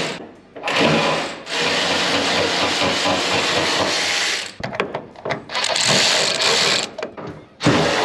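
A power tool running in several runs of a few seconds each, with a spell of short clicks in between, as it loosens the door's hinge bolts.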